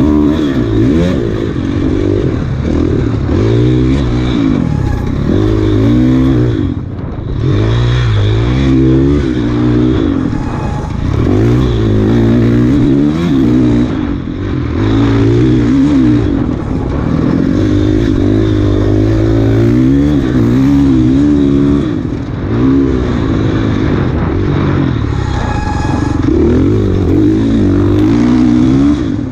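Off-road dirt bike engine revving hard under load, its pitch climbing and falling over and over as the throttle is worked and gears change. The throttle briefly closes about seven seconds in and again a little after twenty seconds.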